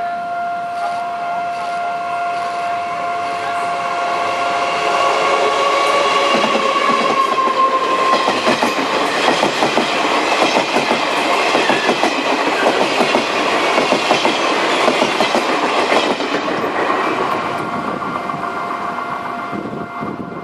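Taiwan Railways Chu-Kuang Express coaches rolling past, wheels clattering over the rail joints; the noise builds about four seconds in, is loudest mid-way and fades near the end. The level crossing's warning alarm, a steady electronic tone, sounds at the start, is drowned out while the coaches pass, and comes back near the end.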